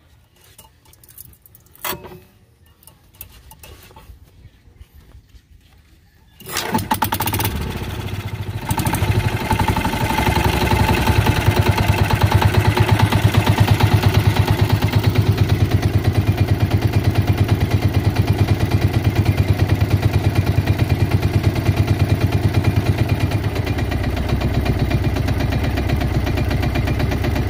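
Newly installed pumpboat engine catching on another starting attempt about six seconds in, after a few short knocks, then running steadily with an even fast beat.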